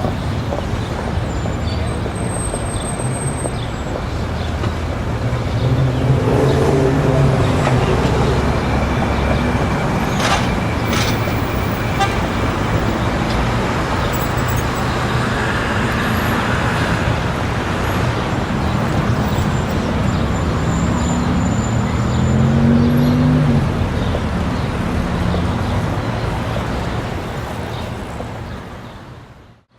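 City street ambience: a steady wash of traffic noise under a crowd of people talking, with pitched tones standing out twice, a few seconds in and again past the middle. There are a couple of sharp knocks about ten seconds in, and the sound cuts out abruptly at the very end.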